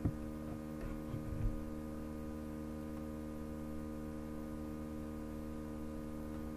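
Steady electrical hum, a low buzz with many evenly spaced overtones. A few faint soft blips come in the first second and a half.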